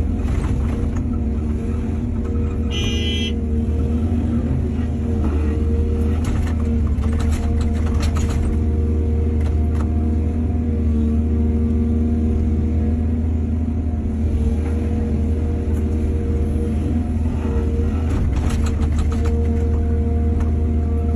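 Excavator's diesel engine running steadily with a constant low drone. A brief high-pitched squeal comes about three seconds in, and clusters of knocks and rattles come twice.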